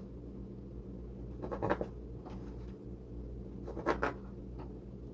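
Kitchen knife sawing through slices of white sandwich bread on a cutting board: two short runs of scratchy strokes, about a second and a half and four seconds in, over a steady low hum.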